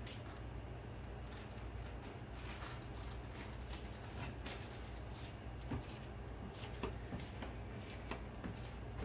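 Food being put away: rustling packaging and scattered soft clicks and knocks, over a steady low hum.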